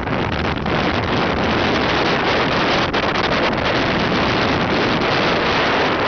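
Wind blowing across the microphone over the rush of water along the hull of a sailing yacht under way: a steady, loud noise without pauses.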